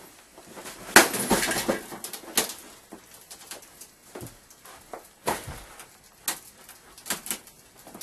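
CRT television's glass screen smashed by a blow about a second in, a loud crash of cracking glass, followed by several sharper knocks and clinks of glass over the next few seconds.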